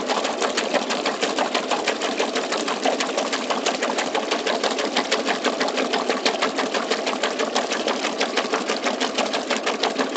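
1968 Frigidaire Rollermatic washing machine agitating a sudsy load: a steady, rapid rhythmic clatter, about six beats a second, with water churning in the tub.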